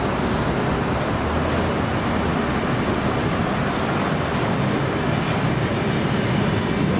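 Russian Railways passenger coaches rolling past: a steady rumble and hiss of wheels on rail and running gear.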